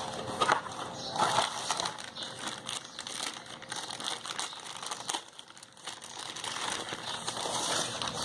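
Packaging crinkling and rustling with small clicks as the charger set's cables and contents are unwrapped and handled, with a brief lull about five seconds in.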